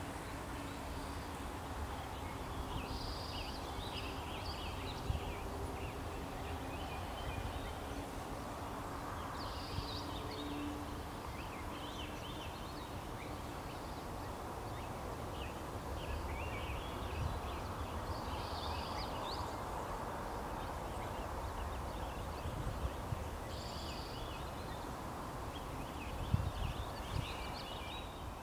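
A bird sings short chirpy phrases, repeating every few seconds over a steady low background rumble.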